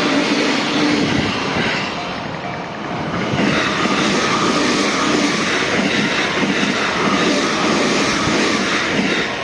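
JR Sobu Line train passing over a level crossing at close range: a loud, steady rush and rumble of wheels on the rails, growing brighter and harsher about three and a half seconds in.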